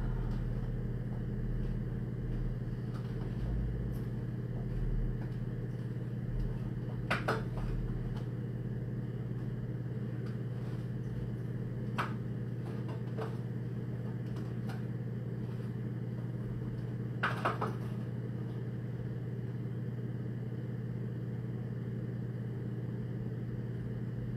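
Steady low hum of room tone, with a few short clicks or knocks about seven, twelve and seventeen seconds in.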